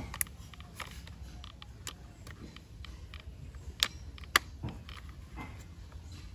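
Hard plastic parts of a toy auto rickshaw clicking and creaking as they are pressed together by hand. There are scattered sharp clicks, the loudest a little under four and about four and a half seconds in, over a low steady hum.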